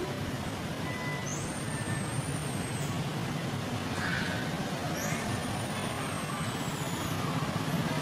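Steady low rumbling background noise, with two thin high whistles, one starting just after a second in and one about five seconds in, each sliding quickly up, holding and then falling away over a second or two.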